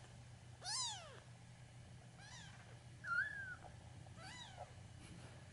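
Very young kitten mewing: four short high-pitched cries, each rising then falling in pitch, the loudest about three seconds in.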